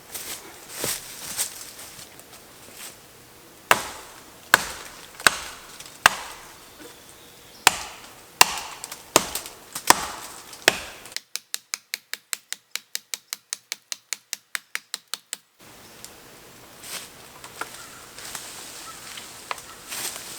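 Wood being struck in a series of sharp chopping blows, roughly one every three quarters of a second, followed by about four seconds of rapid, evenly spaced clicks and then a few lighter knocks.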